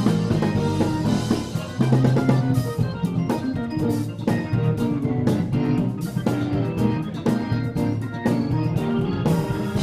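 Live church band playing an instrumental: a drawbar organ holding chords over electric keyboard and bass guitar, with a drum kit keeping a steady beat of kick, snare and cymbal hits.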